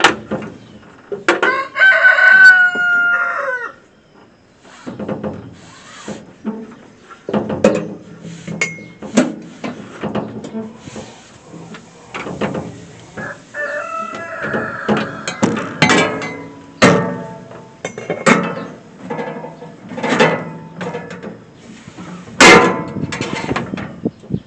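A rooster crowing twice: a loud drawn-out crow about a second in and another around the middle. Between and around the crows come many short, sharp clicks and knocks.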